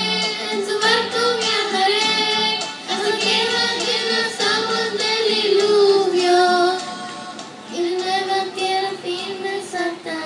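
Two young girls singing a worship song together into handheld microphones, with long held notes, amplified through the church sound system.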